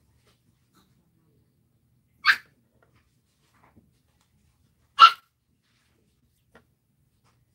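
A dog barking twice: two short barks about three seconds apart.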